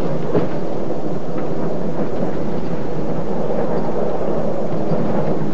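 Steady rumble of a moving railway carriage.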